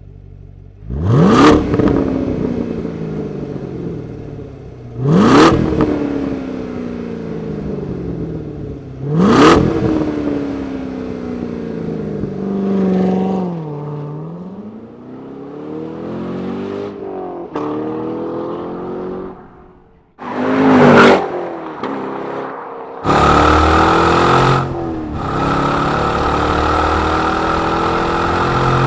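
Chevrolet Corvette C7 Stingray's LT1 V8 through a Borla Touring exhaust being driven hard. It gives three sharp revs, each climbing quickly and then falling away slowly, followed by more rises and falls. Near the end it settles into a loud, sustained high-rev run.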